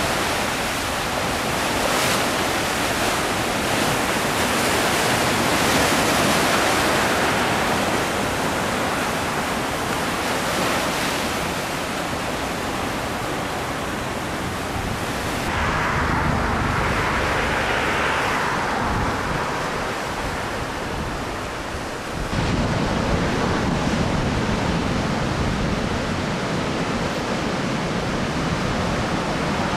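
Ocean surf washing and breaking in a steady rush, with some wind on the microphone. About two-thirds of the way through the sound changes abruptly to heavier surf breaking against a rocky sea cliff, with more low rumble.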